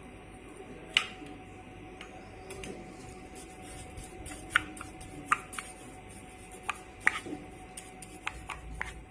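A spoon stirring seasoned curd in a bowl, clinking sharply against the bowl's side now and then, about a dozen times.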